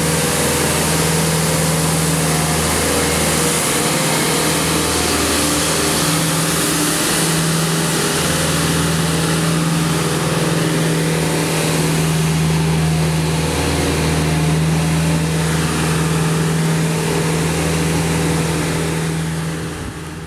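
Elgin Pelican street sweeper's engine running steadily: a low hum with a dense hiss over it, fading out near the end.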